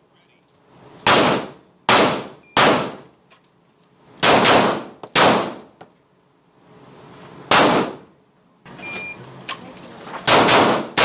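Pistol gunshots in an indoor range, loud and echoing: several scattered shots, then a short electronic shot-timer beep near the end, followed by three quick 9mm shots from a Taurus G3C fired as a Mozambique drill, two to the body and one to the head, the last right at the end.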